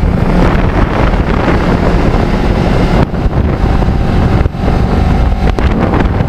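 Kawasaki Ninja 650R's parallel-twin engine running steadily while riding, under a loud rush of wind over the microphone.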